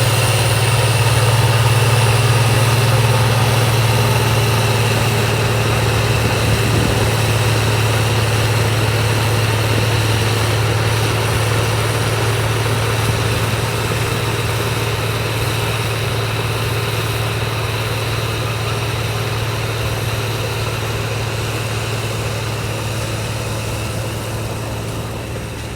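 Heavy-duty municipal snow blower's engine running steadily with a deep hum, slowly growing quieter.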